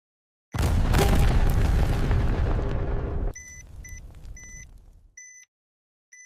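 Sound-effect explosion: a sudden loud blast about half a second in, then a deep rumble that dies away over about four seconds. Electronic bomb-timer beeps come back as the rumble fades, a few in quick succession and then about one a second.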